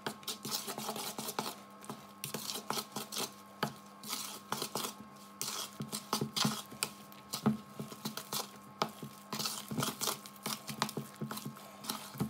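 A spoon stirring flour into wet banana bread mixture in a mixing bowl: an irregular run of scrapes and knocks against the bowl as the dry flour is worked into a batter. A faint steady hum lies underneath.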